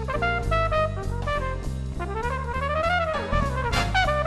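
Background swing-style jazz music, a brass lead playing a melody that climbs and falls about halfway through, over a bass line.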